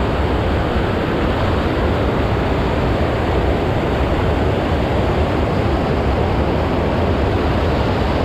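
River water rushing steadily over a low concrete weir: a loud, even roar of white water.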